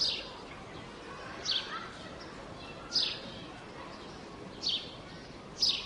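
A bird calling: five short, high calls, each falling in pitch, about a second and a half apart, over a steady outdoor hiss.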